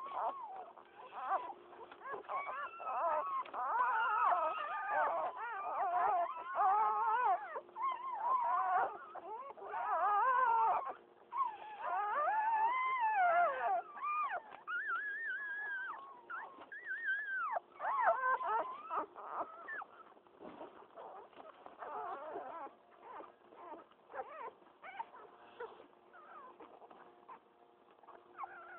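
Newborn pit bull puppies squealing and whimpering, many thin high-pitched cries overlapping. They are dense for about the first twenty seconds, then thin out to scattered squeaks.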